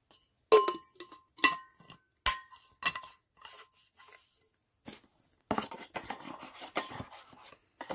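Stainless steel tumbler and its lid clinking and knocking together as they are handled and the lid is put back on, a few strikes ringing briefly. Near the end comes a rustle of the cardboard box as the tumbler is slid back in.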